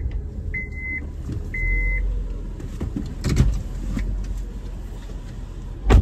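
A car's warning chime beeps twice in the first two seconds over a low steady rumble, then a sharp knock comes about three seconds in. Just before the end the SUV's passenger door is slammed shut hard, the loudest sound.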